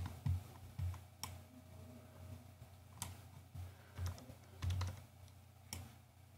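Quiet, irregular clicks and soft taps of hands working at a computer desk, keys and an input device, about ten in all, over a faint steady low hum.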